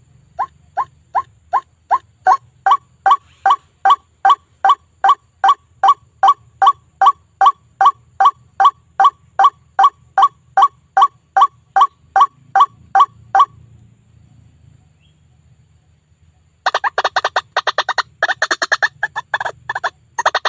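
White-breasted waterhen (ruak-ruak) lure call: a long run of evenly repeated single notes, nearly three a second, each rising slightly in pitch, which stops after about thirteen seconds. After a short pause, a faster, harsher chattering run of calls starts near the end.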